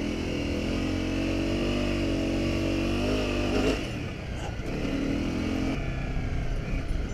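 Honda CRF250 Rally's single-cylinder four-stroke engine pulling through soft sand at steady revs for about three and a half seconds. Then comes a brief rise in revs, and the engine settles lower and quieter before the throttle eases off near the end.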